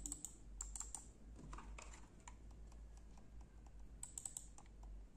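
Faint, sharp clicks of a computer mouse's buttons pressed in quick runs, several clicks at a time: the ordinary clicky buttons of a Lenovo 300 wireless mouse.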